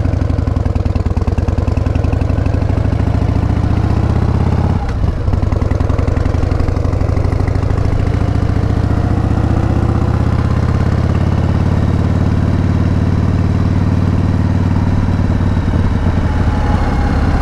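1988 Harley-Davidson Heritage Softail's 1340 cc Evolution V-twin motorcycle engine running steadily, its note dipping briefly about five seconds in.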